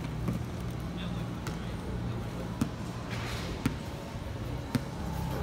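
A basketball bouncing on the pavement, five knocks about a second apart, over a steady low hum.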